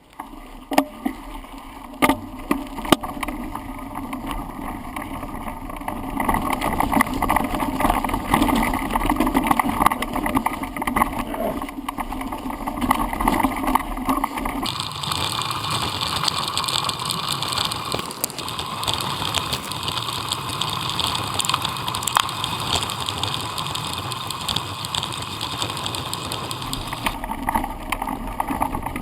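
Handlebar-mounted camera on a bicycle riding down a rough trail: constant tyre and rattling noise with frequent sharp knocks from bumps. About 15 s in the sound turns hissier and loses some of its low rumble.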